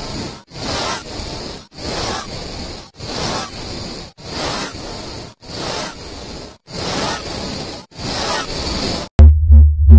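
Heavily distorted, effect-processed logo audio: a hissy, noisy stretch repeated over and over, about every 1.2 seconds with a short break between repeats. About nine seconds in it cuts to a loud low hum.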